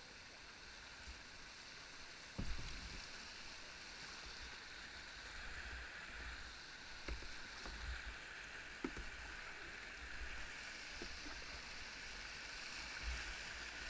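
Rushing white water of river rapids around a kayak, a steady hiss, broken by a few short knocks, the loudest about two and a half seconds in.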